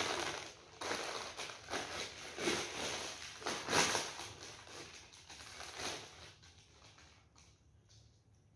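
Crisp packet crinkling and rustling as hands rummage in it and take out a crisp, dying away after about six seconds.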